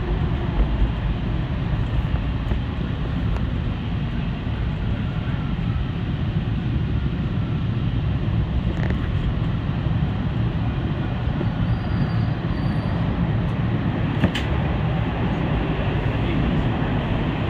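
Subway train running on its rails, a steady low rumble heard from inside the lead car, with a sharp click or clack about two-thirds of the way through.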